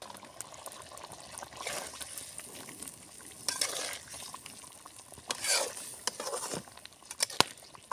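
A spatula stirring curry in a metal pot, in several separate scraping strokes, with one sharp click near the end.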